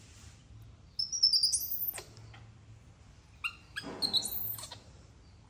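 High-pitched chirping animal calls in two bouts, about a second in and again near the end, with pitch sweeping up and then dropping sharply.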